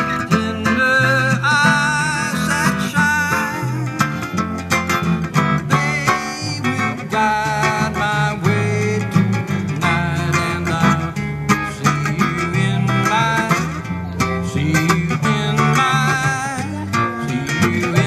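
Acoustic string-band music in a country style: picked guitar over steady bass notes, with a melody line that wavers in pitch.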